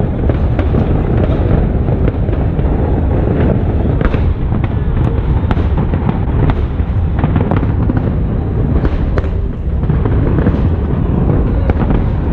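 Aerial fireworks display: a dense, unbroken string of booms and crackling bursts, several to a second, over a continuous low rumble.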